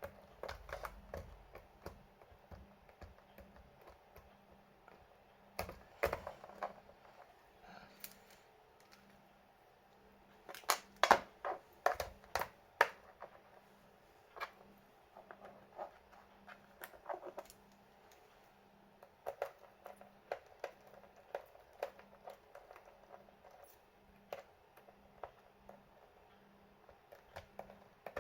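Irregular small clicks, taps and knocks of hands and tools working on a laptop's plastic and metal parts, with the loudest run of clicks about eleven seconds in, over a faint steady hum.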